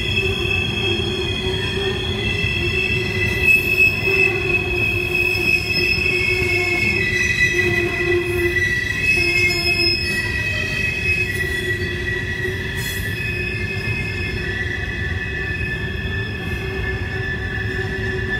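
Empty coal hopper cars rolling by on a sharp curve, their wheel flanges squealing against the rail in several high, sustained tones that drift slowly in pitch, over a steady low rumble of wheels on track.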